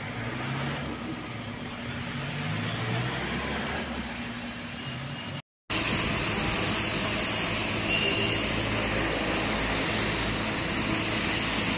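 Engine of a sewer-suction tanker truck running steadily while the truck pumps floodwater up through its hose. About five seconds in, the sound cuts out for a moment and comes back louder.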